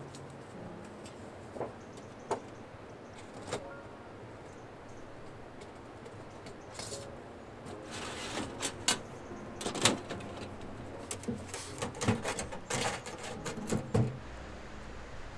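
Thin sheet-metal panels of a folding camp stove being fitted together and latched: a few single metal clicks at first, then a busier run of clanks and rattles over the second half.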